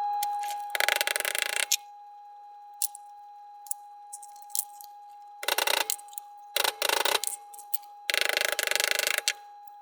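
Thin sheet-metal lantern parts being handled and worked with pliers: several bursts of scraping and rasping metal, the longest near the end, with a few small clicks between them and a faint steady tone underneath.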